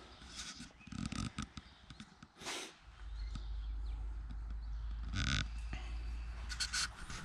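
Footsteps on a concrete floor as someone walks along a row of parked tractors, with scattered light knocks and rustle from a handheld camera.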